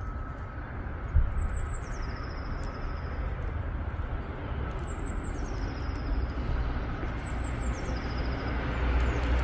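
Steady low rumble of road traffic, with a single low thump about a second in. Above it, a small bird gives a short high chirp that steps down in pitch, three times.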